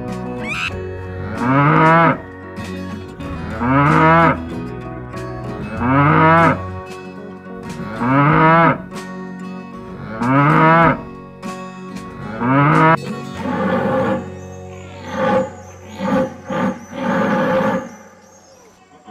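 Cow mooing: six alike drawn-out calls about two seconds apart, then a run of shorter, rougher calls near the end, over background music.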